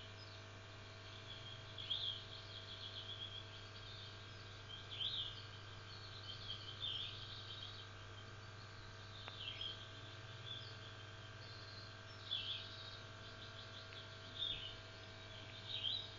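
Steady low hum of an aquarium air pump and filter running, with short high bird chirps and trills every one to two seconds over it.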